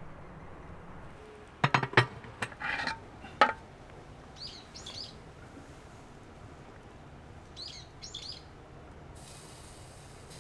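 A quick run of sharp clinks and knocks as the wire-hung smoked chicken legs are handled at the mouth of a clay jar smoker, then a small bird chirps in two short pairs a few seconds apart.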